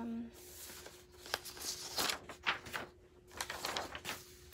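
Rustling and small knocks of plastic and paper things being handled and rummaged through, in short irregular bursts.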